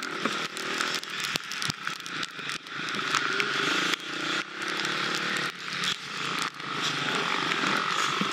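Husqvarna FX 350 four-stroke dirt bike engine running under load, its pitch rising and falling as the bike is ridden off-road, under a steady rushing noise and many sharp knocks and jolts.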